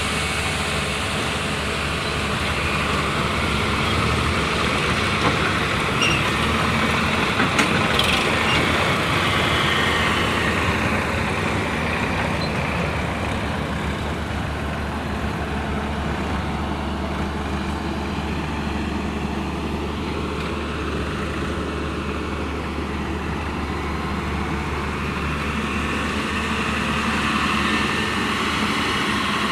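Diesel engine of heavy machinery (backhoe loader or tractor) running steadily under work, with a few sharp knocks about seven to eight seconds in.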